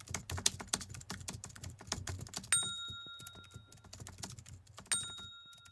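Rapid, irregular ticking clicks that thin out and fade, with two short ringing metallic pings about two and a half seconds apart.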